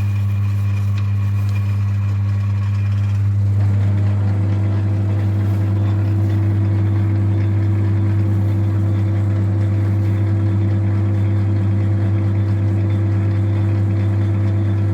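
Metal-working lathe running with a loud, steady low hum, spinning a piston in a 4-jaw chuck, with no cut yet being taken. About three and a half seconds in, its tone shifts slightly as a higher line drops out and a new one comes in.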